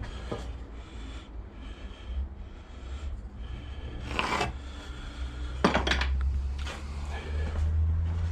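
Handling noises in a workshop: wood and tools rubbing and scraping, with two sharp knocks, over a steady low hum.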